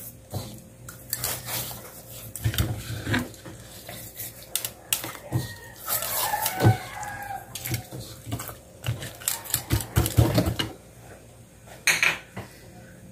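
Hands rubbing salt into raw whole tilapia on a plate, with wet handling noise and scattered clicks and knocks of the fish and fingers against the plate.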